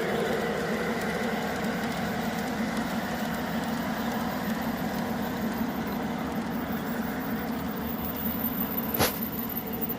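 G-scale model freight train running on garden-railway track, its motor and wheels making a steady hum. A single sharp click about nine seconds in.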